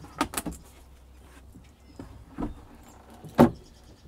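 Engine hatch on a fiberglass boat deck being handled: a few scattered knocks and clunks, the loudest about three and a half seconds in.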